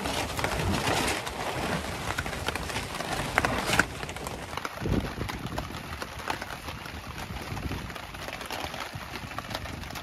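Steady hiss of heavy rain on a tarp overhead, with scattered clicks and knocks of cooking utensils: a knife on a plastic cutting board, and a spatula against a frying pan as taco meat is served.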